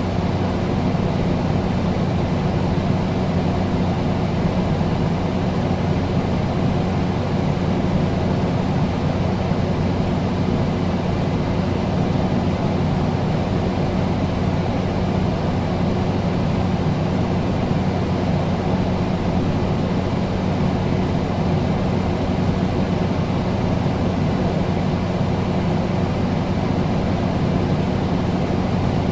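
Air conditioner running steadily: an even rush of air with a low hum at a few fixed pitches underneath.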